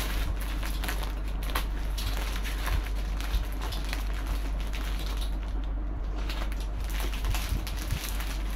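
Clear plastic packaging bag crinkling and crackling as it is handled, cut and pulled open, with many small irregular crackles.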